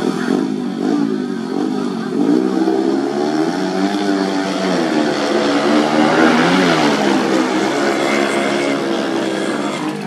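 Several racing motorcycle engines revving on a grasstrack, their pitches rising and falling against each other as riders throttle and shift; loudest around six seconds in.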